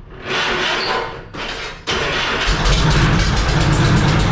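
Lycoming O-320 four-cylinder, air-cooled aircraft engine being started: two short bursts of sputtering noise, then it catches about two and a half seconds in and runs steadily with a rapid, even pulse.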